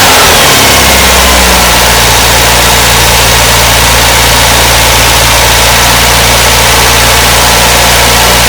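MGB's 1.8-litre B-series four-cylinder engine, just started after a carburettor rebuild, its revs dropping in the first second or so and then settling into a steady idle.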